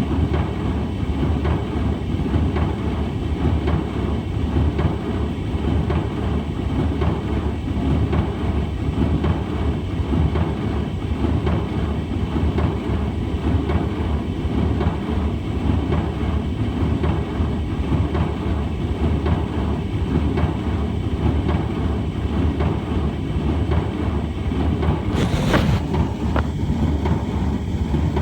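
Brand-new Hotpoint tumble dryer running with a steady, uneven low rumble, a terrible noise that the owner questions as normal for a new machine. A brief sharper noise comes through about 25 seconds in.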